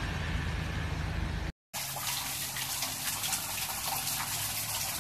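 Steady hiss of heavy rain and floodwater, over a low hum. It cuts out briefly about a second and a half in, then comes back as rain with many sharp, close drips.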